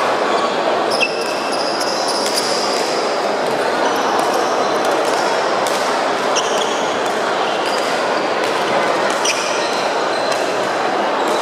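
Busy badminton hall: a steady, echoing murmur of many voices, with scattered sharp shuttlecock hits and short high sneaker squeaks on the wooden court floor.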